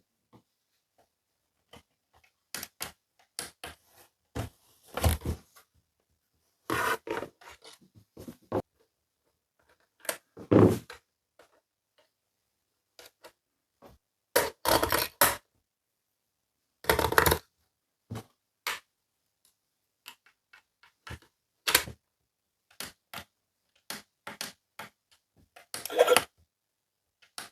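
Small toy pieces being handled, tapped and set down, in scattered clicks, taps and short scraping rustles with silence between them.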